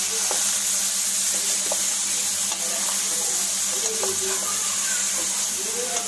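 Raw chicken pieces sizzling steadily as they fry in butter in a steel pot, with a spatula clicking against the pot a few times as they are turned.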